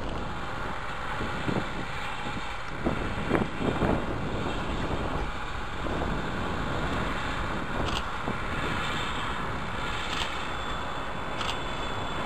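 Two SM48 diesel locomotives, one leading and one pushing at the rear, working hard up a grade with a freight train at a distance: a low, steady rumble, with wind on the microphone.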